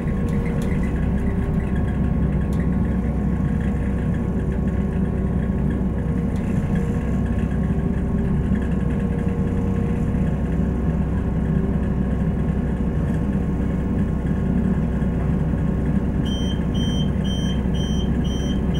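Underfloor diesel engine of a Class 172 DMU running steadily, heard from inside the passenger saloon as the train comes to a stand. About 16 seconds in, a rapid high beeping starts, about three beeps a second, typical of the doors' warning tone.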